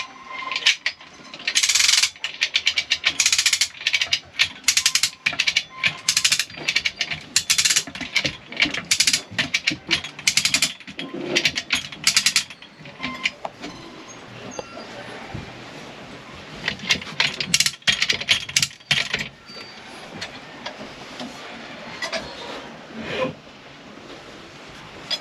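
Runs of rapid metal clicking and knocking from hand-tool work on a boat's engine-to-shaft coupling. The clicking runs for about ten seconds, pauses, returns briefly, and ends with a few single knocks.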